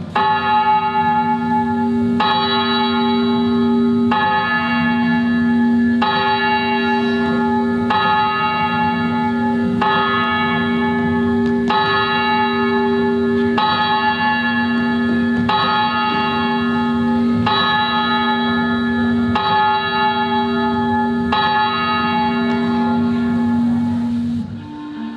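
A deep clock bell striking slowly, about once every two seconds, each stroke ringing on into the next: the clock striking midnight.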